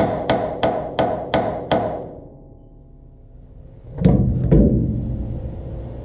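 Hammer blows on steel, about three a second for roughly two seconds, knocking the old leaf-spring hanger rivets out of a Chevrolet C10 frame. After a pause, two heavier, deeper thuds come about four seconds in.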